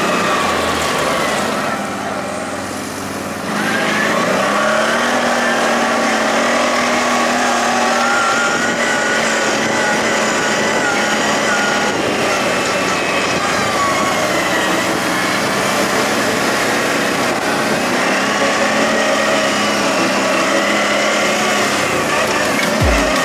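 Quad bike's V-twin engine, a CF Moto X8 820LE, heard from on board under way. The engine note rises and falls with the throttle. It eases off briefly about two seconds in, then picks up revs again around four seconds in.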